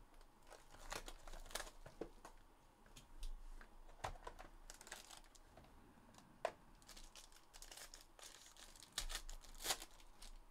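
Faint crinkling and rustling of packaging as a Panini Obsidian hobby box is opened and its sealed card pack handled, with scattered sharp clicks. A denser run of crinkling and tearing near the end as the foil card pack is torn open.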